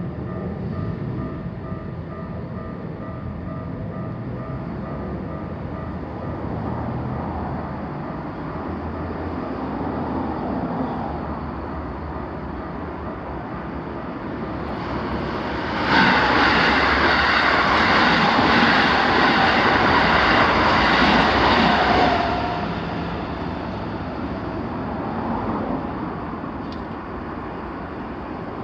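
Train passing a railway level crossing: a steady rumble that swells about sixteen seconds in into a loud rushing pass lasting about six seconds, then dies away.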